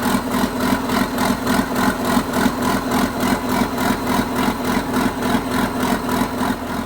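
John Deere 790 excavator's diesel engine running at low speed just after an ether-assisted start, with an even, pulsing exhaust beat. The exhaust system is one the owner thinks needs rebuilding.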